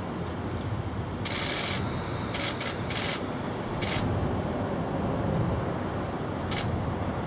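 Bamboo leaves rustling in about six short bursts as a kitten gnaws and tugs at them, with a steady low rumble underneath.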